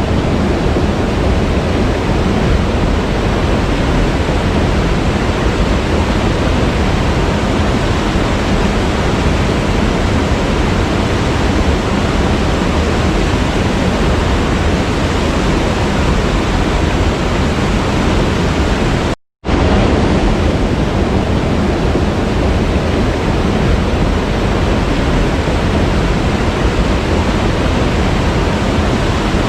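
Waterfall rushing in a steady, loud roar of falling water. About two-thirds of the way through it cuts out to silence for a split second, then carries on unchanged.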